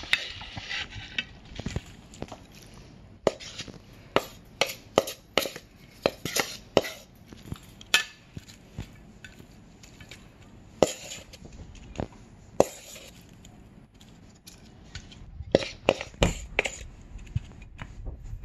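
Wooden spatula scraping and knocking against a stainless steel bowl while food is lifted out onto a plate: irregular clicks and clinks, some sharper knocks among them, busiest at the start and again near the end.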